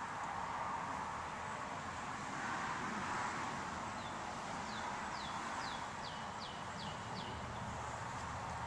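Outdoor ambience with a steady background hiss; about halfway through, a small wild bird sings a quick run of about seven high notes, each sliding down in pitch.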